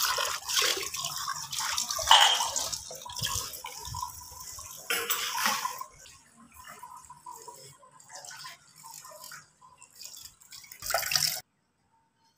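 Tap water splashing over steel pots and dishes as they are washed by hand, with the clatter of the dishes being handled; louder in the first half, then quieter, stopping abruptly near the end.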